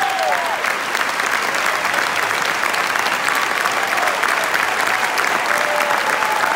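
A large audience applauding steadily, a dense wash of clapping. A held tone trails off about half a second in.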